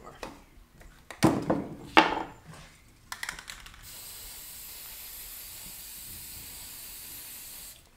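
Two loud knocks about a second apart and a quick run of clicks, then an aerosol spray-paint can spraying in one steady hiss for about four seconds, cutting off just before the end.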